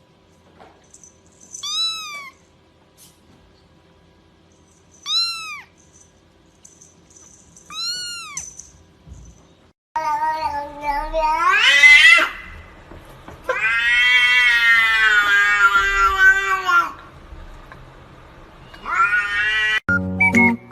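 A kitten mewing three times, short high calls about three seconds apart. Halfway through, a louder cat starts meowing in long, drawn-out calls, three of them, the longest lasting about three seconds.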